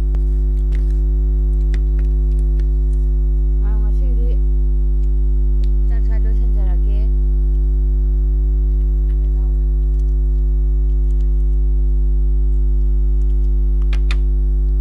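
Loud, steady electrical hum from a faulty recording, several fixed tones that do not change, drowning out the room. A faint voice comes through twice, around four and six seconds in, with a few faint clicks.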